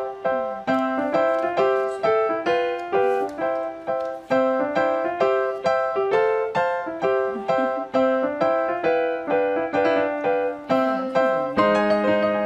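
Background music: a light piano melody of single struck notes at an even, unhurried pace, with lower notes joining in near the end.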